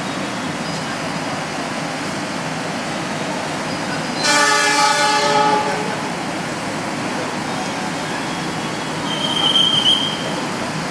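A train horn sounds once for about a second and a half, about four seconds in, over a steady rumble of station and train noise. A short high whistle blows near the end.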